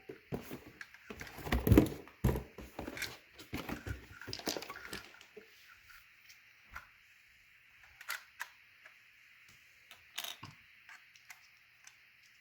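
Plastic parts of a DIY dinosaur assembly toy being handled and pushed together. A dense run of clicks and knocks fills the first five seconds, loudest about two seconds in, then only scattered single clicks follow.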